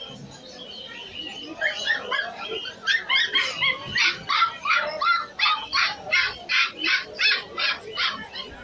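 A puppy yapping in a rapid string of high-pitched yelps, starting about two seconds in and settling into about three a second.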